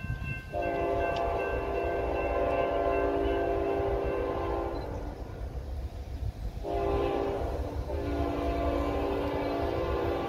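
Locomotive multi-chime air horn sounding for a road crossing: a long blast, a pause, then a shorter blast running straight into another long one.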